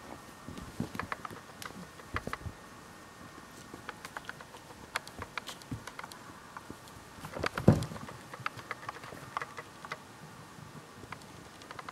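Kitten playing with a string toy: scattered light clicks and scratches of its paws and claws, with one louder dull thump about two thirds of the way through.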